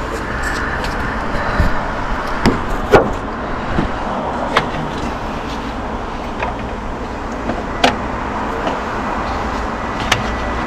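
An air compressor being worked into place on a bus engine, with hand tools: several sharp knocks and clicks of parts and tools against the engine, the loudest about three seconds in. A steady background hum runs underneath.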